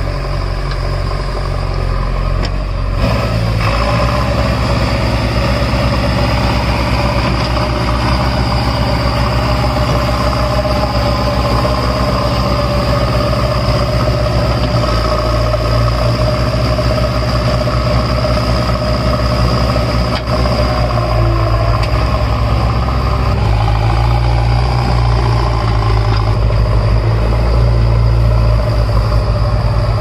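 JCB 3DX backhoe loader's diesel engine running steadily while the backhoe arm digs. The engine note steps up and grows fuller about three seconds in.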